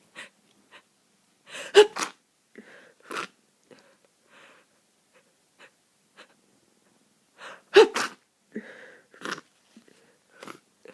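A person with flu sneezing twice, big wet sneezes, each after a short build-up, with quick sniffs and breaths between them.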